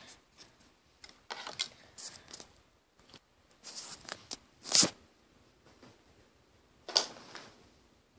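Rustling and clicking handling noises, with two sharp knocks, one nearly five seconds in and one about seven seconds in.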